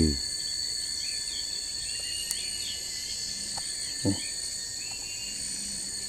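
Steady high-pitched drone of forest insects, with a few faint bird chirps over it and one brief low sound about four seconds in.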